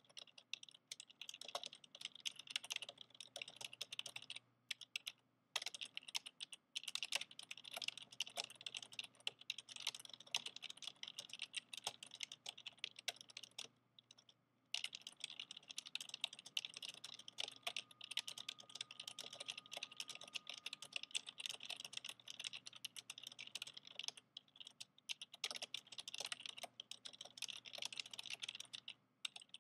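Fast typing on an old PC's clicky keyboard: a dense, continuous patter of key clicks, broken by a few brief pauses.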